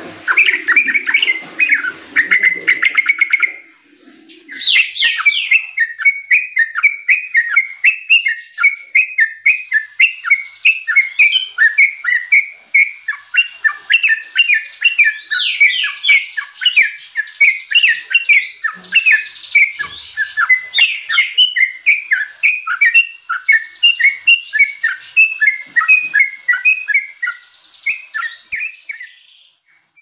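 Yellow-vented bulbul singing a long run of quick chirping notes, with a short break about four seconds in.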